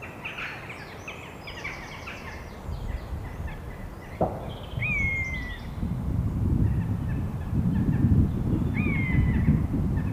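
Woodland birds calling: quick high chirps at the start, then a slurred whistle that dips in pitch, heard twice. Under them a low rumble of wind on the microphone grows louder from about three seconds in and becomes the loudest sound.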